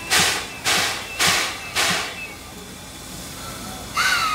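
Steam locomotive C56 160 working: four sharp exhaust chuffs about half a second apart, which stop about two seconds in. Near the end its steam whistle sounds, a tone that swoops up and then slowly sags in pitch.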